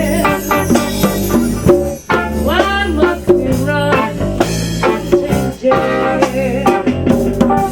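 Band music: guitar and drum kit playing, with a note sliding up in pitch about two and a half seconds in.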